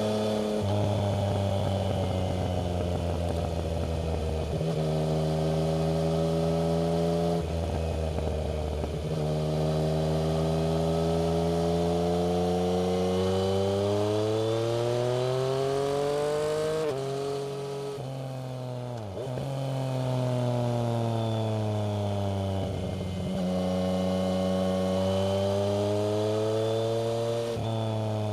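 Yamaha MT-09 three-cylinder engine heard through a Black Widow aftermarket exhaust while riding. The engine note repeatedly climbs in pitch under throttle, then drops suddenly. About two-thirds through it falls quieter and lower as the bike slows, then pulls up again.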